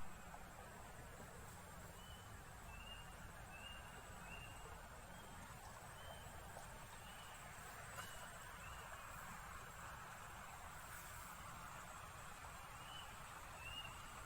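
Faint riverside ambience: a steady hiss with short, high chirps repeating about twice a second, in one run from about two to seven seconds in and another near the end.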